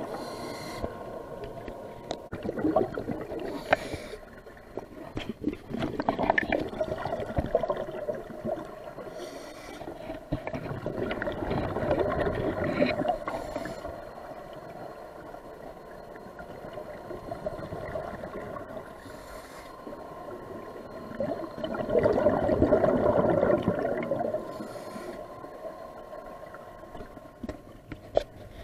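Scuba regulator breathing heard underwater: exhaled bubbles gurgling out in swells several seconds apart, over a faint steady tone.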